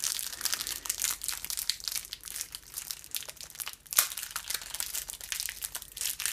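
Speedcube packaging crinkling and rustling as it is opened by hand, with a sharp click about four seconds in.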